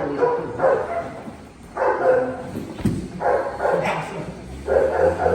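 A dog vocalizing in about four short, pitched calls spaced roughly a second apart.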